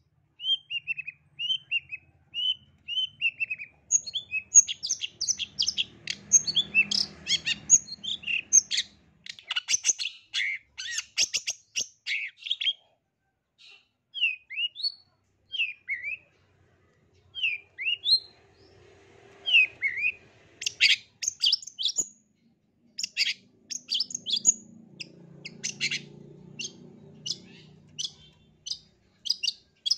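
Long-tailed shrike singing a varied, rapid song. It opens with a run of descending slurred whistles, then comes a burst of fast chips and downslurred notes with short pauses between bursts. A low rumble sits underneath twice, around the middle and near the end.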